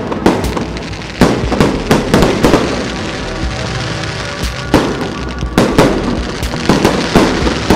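Festive fireworks going off in quick succession, a string of sharp bangs and crackles in two main clusters, over steady background music.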